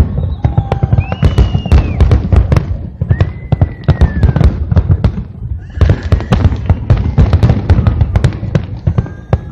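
Fireworks display: a rapid, dense barrage of bangs and crackles, easing somewhat in the middle and thickening again after about six seconds, with a few brief high whistling tones among them.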